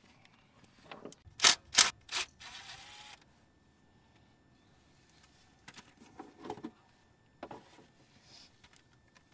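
Hand tools working the bolts of a truck engine's rear main seal cover: three sharp metal clicks, a short whirring burst about two and a half seconds in, then a few faint clinks and rattles.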